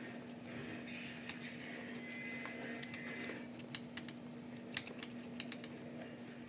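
Metal spoon scraping the skin off a fresh ginger root, with irregular sharp clicks and scratches of the spoon, over a faint steady hum.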